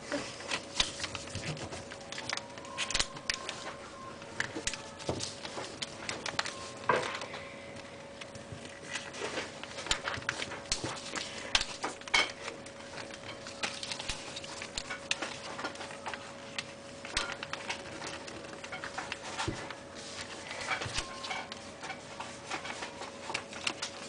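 A dog moving about, with many irregular light clicks and ticks over a faint steady hum.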